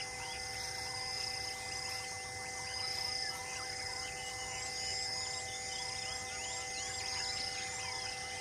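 Forest ambience: a steady high insect drone with birds chirping, including a short call repeated about twice a second, over a few steady held tones.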